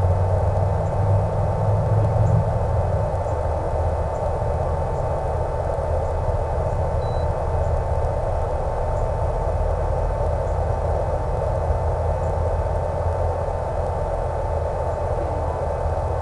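Hobbyzone Super Cub RC plane in flight, its E-flite Power 10 brushless motor and 11x7 APC propeller running at steady cruise under a rush of wind, heard through the onboard camera's microphone. It is a steady drone with no change in pitch, slightly louder in the first few seconds.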